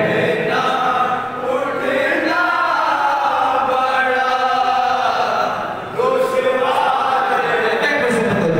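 Noha, an unaccompanied Urdu lament, sung by a male lead reciter at a microphone with a group of men singing the lines in chorus with him. It comes in long, drawn-out phrases, and a new phrase starts sharply about six seconds in.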